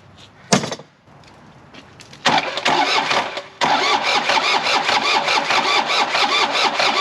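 A short sharp clunk, then the Takeuchi excavator's diesel engine cranked over by its starter with a steady rhythmic chug from about two seconds in, briefly interrupted just after three seconds. The engine is being spun to use compression to blow a seized, loosened injector out of its bore.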